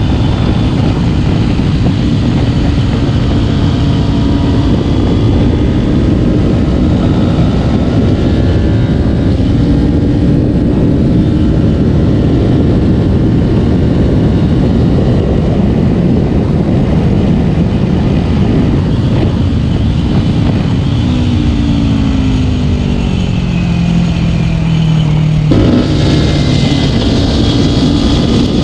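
Kawasaki Ninja 250's parallel-twin engine running while the bike is ridden, under heavy wind rush on the microphone. About 21 s in the engine note falls in steps as the bike slows, and a little after 25 s the sound suddenly grows louder and brighter.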